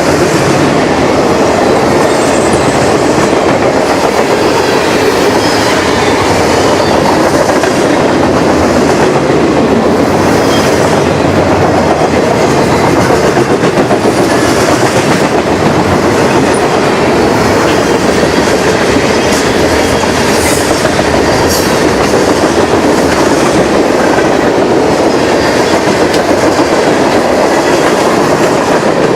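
Freight train cars rolling past at close range, their steel wheels running loud and steady on the rails, with a few brief high-pitched ticks about two-thirds of the way through.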